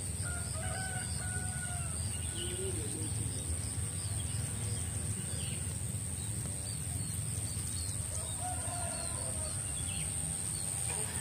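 Rural field ambience: a rooster crowing twice, about half a second in and again about eight seconds in, over small bird chirps, a steady high-pitched insect drone and a low rumble.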